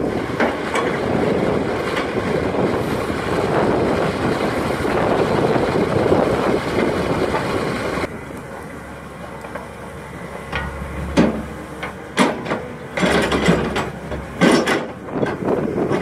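Priestman Bogmaster tracked excavator running, at first under heavy wind buffeting on the microphone. About halfway the wind noise drops away, leaving the machine's low engine drone, and in the last third a string of sharp, irregular clanks and knocks comes as the boom swings and the bucket is lowered into the ditch.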